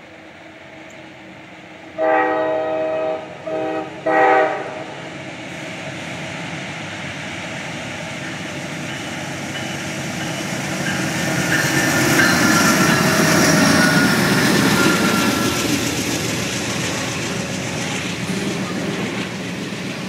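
Amtrak Auto Train with a GE Genesis diesel locomotive sounding its air horn in three blasts about two seconds in, the first the longest, then approaching and passing. The rumble of the locomotive and wheels on rail grows to its loudest at about twelve to fourteen seconds, then holds steady as the bilevel passenger cars roll by.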